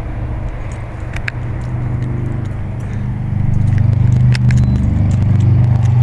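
Lennox Elite Series heat pump outdoor unit running: a steady low hum that grows louder about three and a half seconds in, with a few faint clicks over it.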